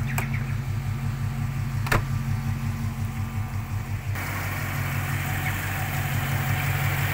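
Rover 3.5-litre V8, rebuilt with a performance cam, idling steadily with an even low pulse. A sharp click comes about two seconds in, and a little past the middle the sound turns brighter and hissier as the bonnet comes open.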